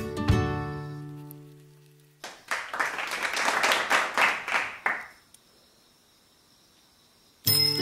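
Background music fades out, then about three seconds of clapping-like applause, likely an edited-in effect. A short stretch of near silence follows, and the music starts again near the end.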